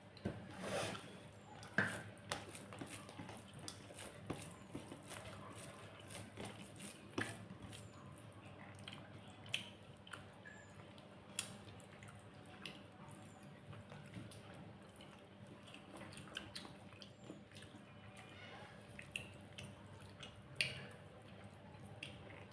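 Close-up eating sounds of rice and curry: wet, squishy chewing and mouth sounds with irregular small clicks and smacks.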